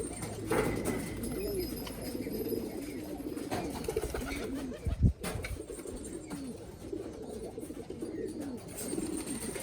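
Domestic pigeons cooing, many low arching coos overlapping one another, with a single loud thump about five seconds in.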